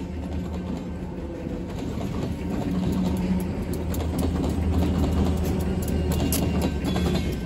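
Diesel locomotives of a freight train passing close by, their engines droning low under the rapid clicking of steel wheels on the rails. The sound grows louder about two seconds in as the trailing locomotives come past.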